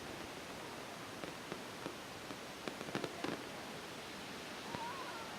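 Fireworks going off: scattered sharp pops and cracks, bunched together about three seconds in, over a steady hiss of background noise.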